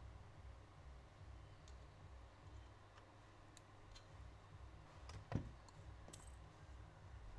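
Near silence with a faint low hum, a few scattered small clicks and one sharper tap about five seconds in, as of small repair tools handled on a workbench during a phone repair.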